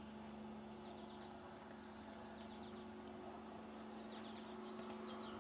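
Faint outdoor ambience with small birds chirping: clusters of short, falling chirps starting about halfway through, over a steady low hum.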